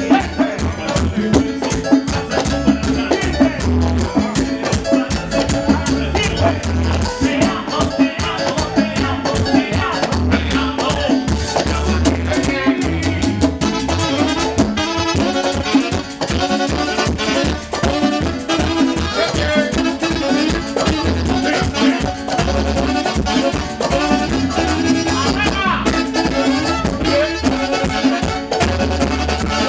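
Live salsa band playing: timbales and cymbals drive a steady, dense rhythm over a pulsing bass line, with a horn section of saxophones and trumpet.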